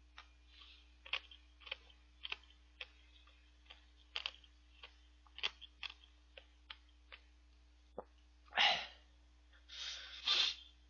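Close-miked mouth sounds of eating: a string of small wet clicks and smacks while chewing and swallowing a mouthful of shaved ice mixed with milk, then two loud breathy puffs through the nose, one about eight and a half seconds in and another near the end.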